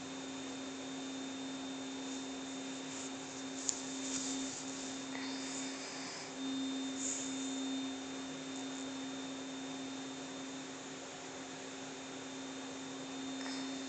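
Steady low electrical hum with a faint high whine above it, broken only by a few soft rustles and a light click.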